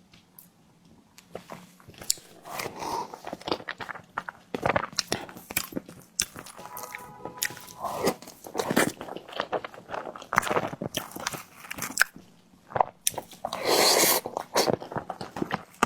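Close-miked mukbang eating of a tiger skin dessert: repeated bites and chewing with many short, sharp mouth clicks and smacks, busiest and loudest near the end.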